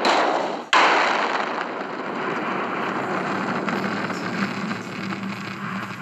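Explosive blast inside a ship's steel interior: a sharp bang under a second in, then a long rushing noise that slowly fades.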